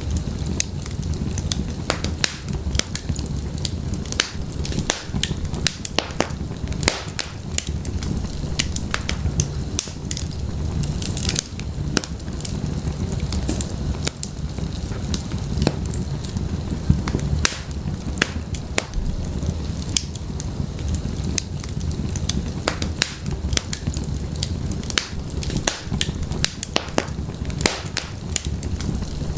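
Wood fire in an open fireplace crackling, with many sharp irregular pops and snaps over a steady low rumble of burning.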